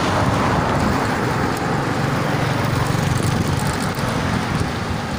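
Steady rush of wind on a handheld phone's microphone while riding a bicycle, mixed with street traffic noise.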